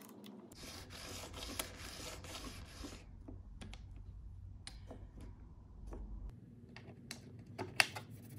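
Plywood parts of a cam clamp jig rubbing and sliding against each other as the jig is worked by hand, a scraping hiss lasting a couple of seconds. After it come a few light clicks and taps as a metal bolt and a wooden board are handled, with one sharper click near the end.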